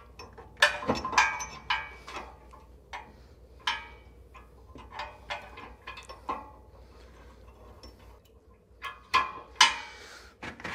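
Steel hitch pin being fitted into the coupler of a Demco Recon gooseneck fifth-wheel hitch: a string of irregular metal clinks and clicks, some with a short ring.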